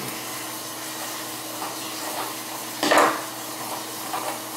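Faucet running in a steady hiss with the aerator off, and a brief loud clatter about three seconds in.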